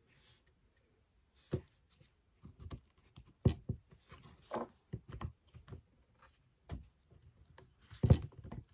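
Hard plastic cordless-drill housing shells being handled and pressed together over the motor and gearbox, giving irregular knocks and clicks. The housing does not yet sit fully closed because of melted plastic around the rear bearing seat.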